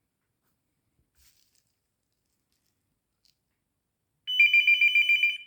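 Near silence with a couple of faint clicks, then about four seconds in a short electronic phone ring: two high tones trilling rapidly, about ten pulses a second, for roughly a second. It comes as the SIM-card landline adapter powers up and starts working with the corded phone.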